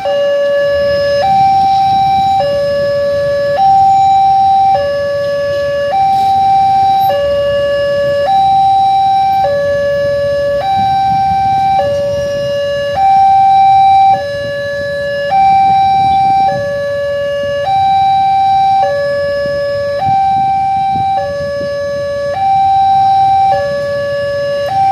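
Railway level-crossing warning alarm sounding, an electronic two-tone signal that switches between a lower and a higher note, each held a little over a second, repeating steadily to warn that a train is approaching. Road traffic runs underneath.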